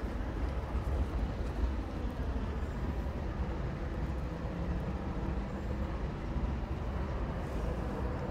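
Steady low rumble of diesel locomotives idling in a rail yard.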